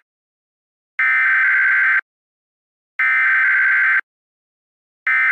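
Emergency Alert System SAME digital data bursts: two one-second bursts of buzzy, screeching data tones with a second of silence between them, then a much shorter burst near the end, the length of an end-of-message signal.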